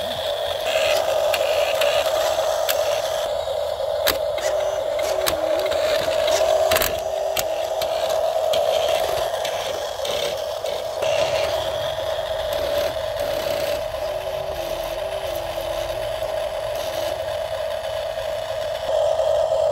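Electric drive motor and gearbox of a toy RC low-loader truck whining steadily as it drives, with plastic rattles and sharp clicks from the trailer and its load rolling over concrete.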